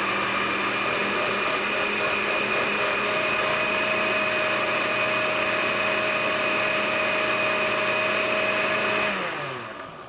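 Electric blender running steadily, whirring yogurt, honey and vanilla into a creamy sauce. It is switched off about nine seconds in and winds down, its pitch falling.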